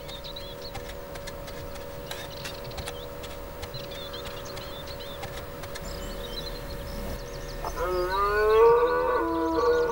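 Red deer stag roaring in the rut: about eight seconds in, a loud, long drawn-out bellow that rises in pitch at its start. Before it there is only a faint steady hum with small high chirps.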